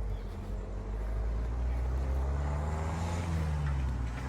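Engine drone of a passing vehicle: a low hum that swells over the first couple of seconds, bends slightly in pitch, and eases off near the end.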